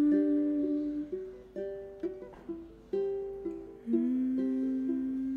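Background music: a soft song of plucked string notes over a low, slowly sliding melody line.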